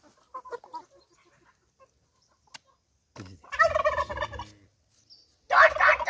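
Male domestic turkey gobbling twice, about three seconds in and again near the end, each gobble lasting about a second. A few soft short calls come near the start.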